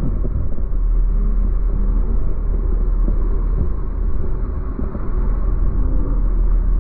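Twin 300 hp outboard motors running a boat at speed: a steady low rumble mixed with the rush of the hull and wake through the water.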